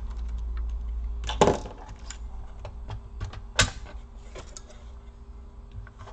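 Scattered clicks and knocks as a laptop motherboard's last screw is taken out and the board is lifted out of the plastic bottom case. The sharpest knocks come about one and a half and three and a half seconds in.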